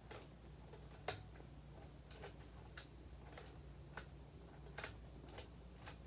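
Faint, irregularly spaced small clicks, about one or two a second, over a low steady hum.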